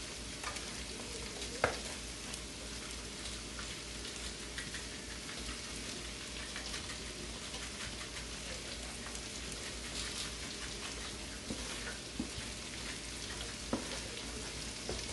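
Onion and bell pepper sautéing in a pot: a steady sizzle with fine crackling, broken by a sharp click a little under two seconds in and a few lighter clicks near the end.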